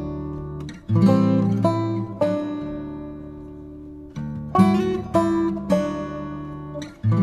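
Background music: an acoustic guitar playing plucked and strummed chords, each ringing out and fading before the next.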